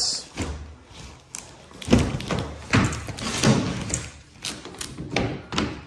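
Soft vinyl roll-up tonneau cover being rolled up and handled on a pickup bed, giving a string of irregular dull thumps and taps; the loudest comes about two seconds in.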